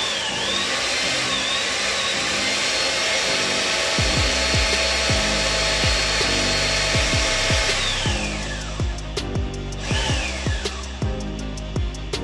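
Hydraulic shop press's pump running with a steady hiss and a wavering whine, pressing drive sprockets down onto a hex driveshaft. It stops about eight seconds in. Background music with a steady beat plays under it.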